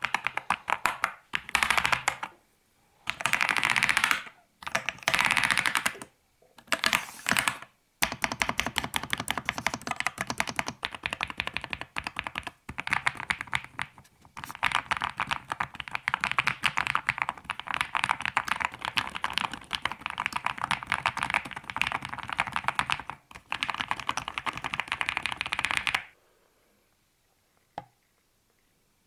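Typing on an Akko SPR 67 custom mechanical keyboard with unlubricated stock switches. First come short bursts of fast key presses with brief pauses, then a long unbroken run of rapid typing that stops about 26 seconds in, leaving only a faint click or two.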